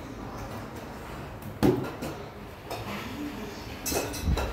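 Metal spoon and tableware clinking and knocking at the table: one sharp clack about a second and a half in, a lighter one a second later. Near the end come bumps and rubbing as the recording phone is handled.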